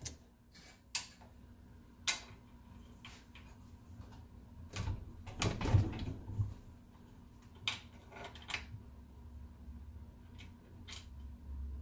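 Scattered metal clicks and taps of a bolt and hand tools being fitted at a minibike's engine mount, with a louder run of knocks and handling noise about five to six and a half seconds in.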